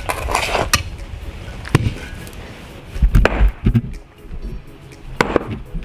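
Sledgehammer blows on a wire-reinforced concrete pad: a handful of sharp, heavy strikes at uneven intervals, with a cluster of thuds about three seconds in, over background music.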